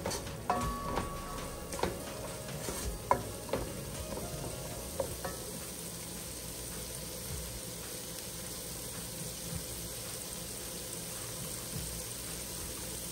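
Onion, garlic and ground-spice masala sizzling steadily as it is fried and stirred, with a few sharp clicks in the first five seconds.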